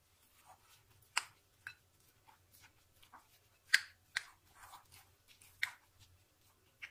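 Spoon stirring raw chicken mince with chopped onion and spices in a bowl: quiet, irregular squelches with several sharp clicks of the spoon against the bowl.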